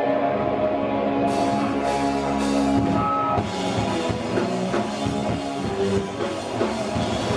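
Hardcore punk band playing live: distorted electric guitar with a drum kit. Held guitar chords ring out at first, then crashing cymbals and fast drumming come in about a second in.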